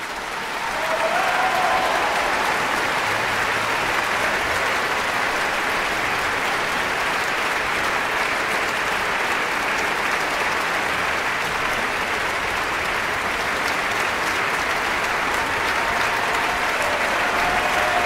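Concert hall audience applauding at the end of a symphony performance, swelling within the first second or two into a steady, full ovation.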